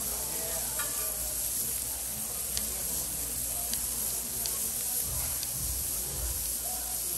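Pork belly slices sizzling steadily on a hot ridged grill pan, with a few sharp ticks spaced through the sizzle.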